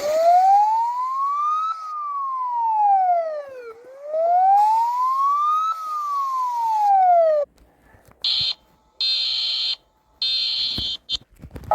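Emergency alert siren wailing, its pitch sweeping up and down twice over about seven seconds. It then breaks off, and three short, high-pitched alarm tones follow.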